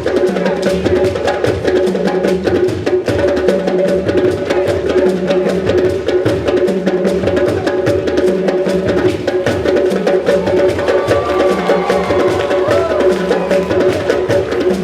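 Ensemble of African drums playing a fast, dense rhythm, with a low drum pattern repeating about once a second.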